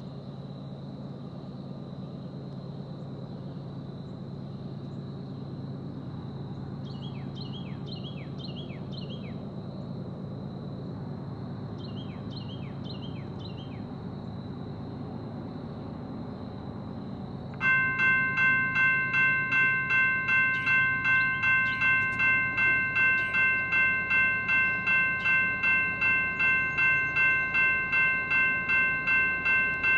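A low steady rumble with two short runs of bird-like chirps, then about eighteen seconds in a railroad grade-crossing bell starts ringing loudly, a bit more than two rings a second. The bell is the crossing warning set off by the approaching BNSF ES44C4 freight train.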